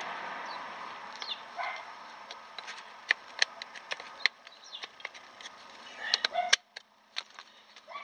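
Sharp metal clicks and taps of pliers and a brake-shoe spring against a drum brake shoe as the spring is hooked on. Short high whines or calls from an animal come in at several points between them.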